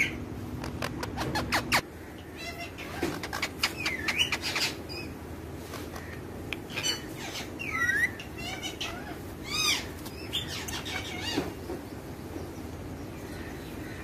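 Rose-ringed parakeets giving short chirps and squawks that rise or fall in pitch, with a quick run of sharp clicks in the first couple of seconds. The calls stop about three quarters of the way through.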